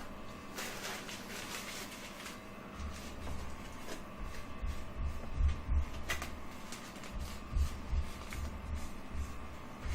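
Handling noise from working on computer hardware: a rubbing, scraping stretch early on, then a series of low bumps and small knocks, over a faint steady hum.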